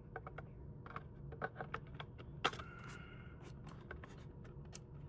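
Scattered light clicks and taps of the plastic housing and internal parts of a ResMed AirSense 10 CPAP machine being handled and fitted together during reassembly, with one sharper click about two and a half seconds in followed by a brief high tone.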